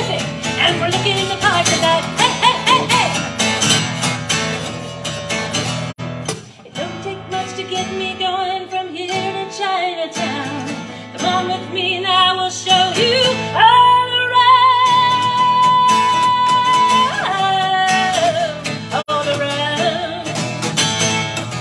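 A woman singing while strumming an acoustic guitar, her voice with vibrato; in the second half she holds one long note for about three and a half seconds.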